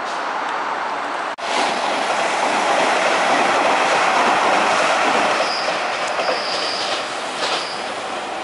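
Hanshin Main Line electric train running past on curved track, wheels rumbling over the rails. A high wheel squeal sets in about five seconds in as it takes the curve. The sound cuts off abruptly about a second and a half in, then comes back louder.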